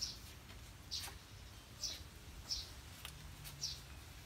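Faint short high chirps repeating about once a second, like a small bird chirping; the horns are not sounding.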